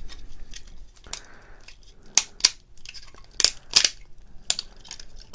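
PLA support material snapping and cracking off a 3D-printed model: a string of sharp, separate snaps and clicks, loudest in a quick cluster around the middle.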